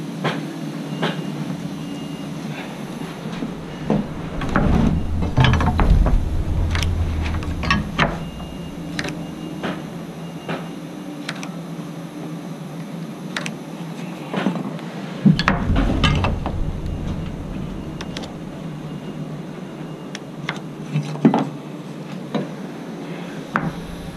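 Hand tools at work on a wooden wall plate: scattered sharp clicks and knocks of a pencil and metal speed square against the 2x4 lumber and OSB subfloor, over a faint steady hum. Low rumbling passages come in about four seconds in and again around fifteen seconds in.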